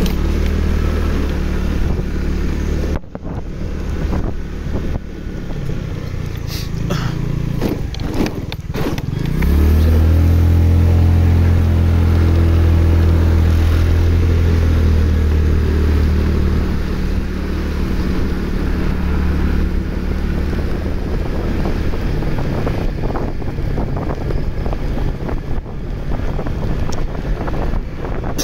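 Motorcycle engine running while being ridden, its pitch rising about nine seconds in as it speeds up, then holding steady and louder for several seconds before easing off.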